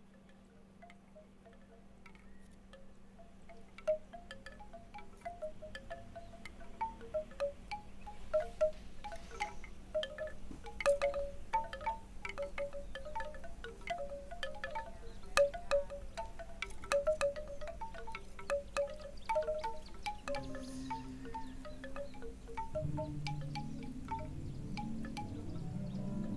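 Wind chimes tinkling in irregular, scattered strikes that grow louder, with a low droning tone coming in about twenty seconds in and thickening near the end.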